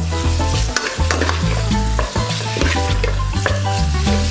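Metal spoon scraping and stirring in an aluminium pot while shredded chicken, onion and garlic sizzle over high heat, with background music throughout.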